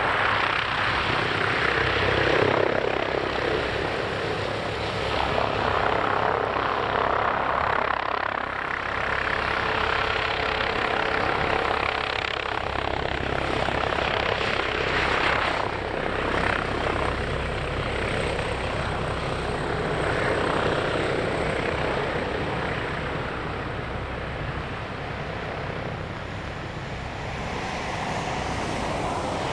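Airbus H145 D3 helicopter hovering and manoeuvring low to land: a steady rotor beat with the whine of its twin turboshaft engines and Fenestron tail rotor. The sound swells and fades as the machine turns, then grows a little quieter near the end as it settles onto the ground.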